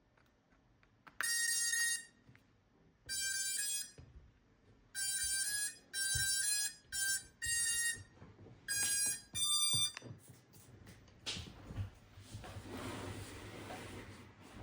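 Custom ESC startup melody on an FPV racing drone, beeped out through its brushless motors: a tune of bright electronic beeps in short phrases that ends about ten seconds in. A soft rushing noise follows.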